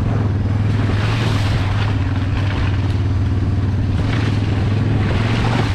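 A small engine running steadily at low speed, with wheels and the dogs' feet rolling and crunching over a gravel trail as the dog team pulls the rig.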